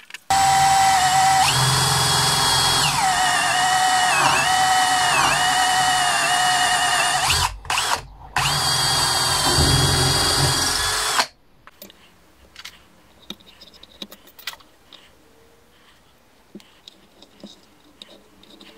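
Cordless drill boring the centre hole through a wood slice set in epoxy resin, its motor giving a high whine that dips in pitch several times as the bit bites under load. It stops briefly twice, runs on, then cuts off about eleven seconds in, leaving only faint light knocks.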